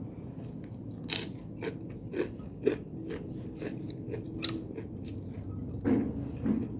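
A person biting and chewing crunchy food close to the microphone, a run of sharp crunches with the loudest bites about a second in, near the middle and near the end.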